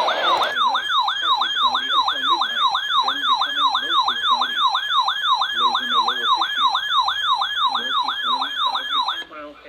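Electronic siren wailing in fast, repeating falling sweeps, about three a second, that cut off suddenly near the end.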